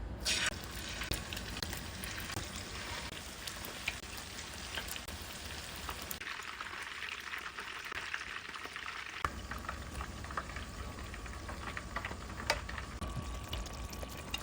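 Food frying in hot oil in a pan: a steady sizzle with many small crackles and pops.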